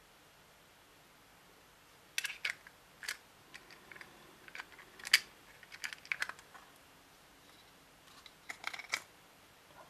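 Sharp plastic clicks and light taps of the pinch-type lens caps on a Zeiss Touit 2.8/50M macro lens being taken off and fitted while the lens is turned in the hands. They begin about two seconds in, with a last cluster near the end.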